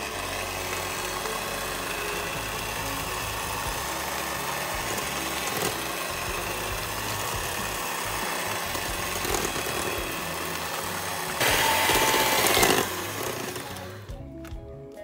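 Electric stand mixer running, its beaters whisking creamed butter and egg yolk in a stainless steel bowl: a steady motor hum that starts suddenly, gets louder for about a second near the end, then cuts off.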